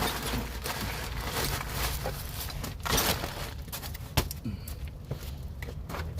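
Hand tools and sockets being handled while working on the car: uneven scraping and rustling with a few sharp metallic clicks.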